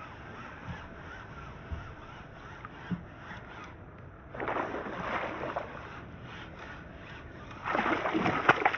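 Water splashing and sloshing against a small sit-inside kayak, louder in two spells around the middle and near the end, with a few sharp knocks near the end.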